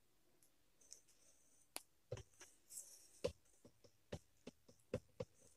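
Sharp little clicks and taps of plastic suction-cup clips being pressed and snapped onto a glass aquarium heater tube, about a dozen at irregular intervals, with some faint rustle of handling.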